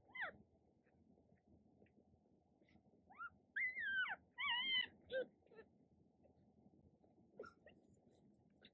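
Newborn dachshund puppies squeaking and whimpering as they nurse: short high-pitched squeaks that rise and fall in pitch, one just after the start, a cluster between about three and five seconds in, and a single brief one near the end.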